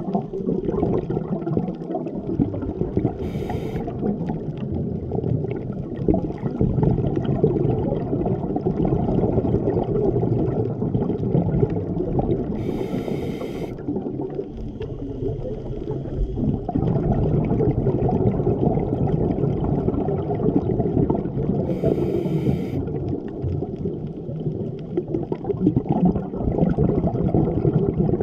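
Underwater scuba breathing through a regulator: a short hiss three times, about nine seconds apart, over a steady low rumble and crackle.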